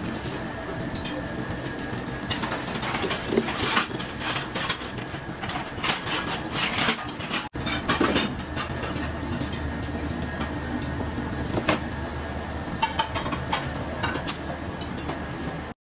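A knife cutting and scraping through the flesh and skin of a large giant grouper on a plastic cutting board, in irregular clusters of short scrapes and clicks. A steady hum runs underneath.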